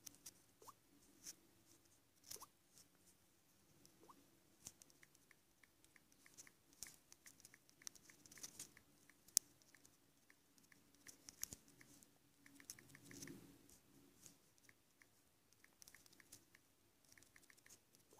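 Faint, irregular taps and short high ticks of someone typing on a tablet's on-screen keyboard, over a low room hum.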